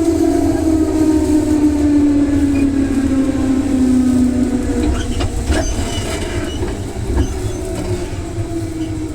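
Electric train traction motors whining and falling steadily in pitch as the train slows, over a steady rumble of wheels on rail. The whine fades about five seconds in, and a few sharp wheel clacks over rail joints follow.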